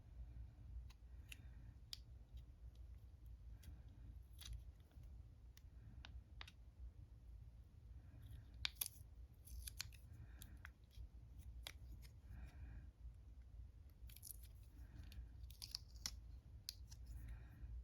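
Faint paper crinkling and scattered small clicks as the wrappers are peeled off new watercolour pans.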